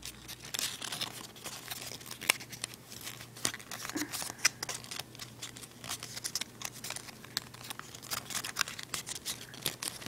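Sheet of origami paper crinkling and rustling as it is folded and creased by hand, in many small irregular crackles over a faint steady hum.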